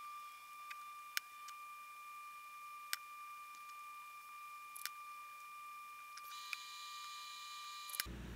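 A faint steady high-pitched whine, which cuts off suddenly near the end. Five short sharp clicks are spread through it as chopsticks and a drinking glass are set down on the tray and the stone countertop.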